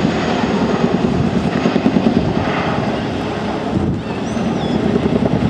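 Chinook tandem-rotor helicopter flying a display, its rotors beating in a loud, rapid chop that dips briefly about four seconds in.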